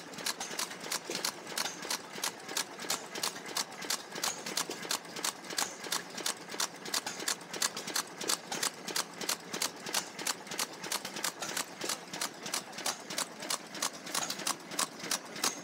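Vintage horizontal stationary engine running steadily, giving an even beat of sharp knocks at about four a second.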